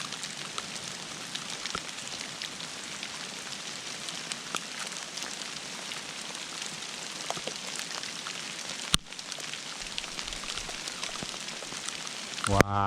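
Hail falling steadily: a continuous hiss dotted with many small clicks of hailstones striking around, with one sharp knock about nine seconds in.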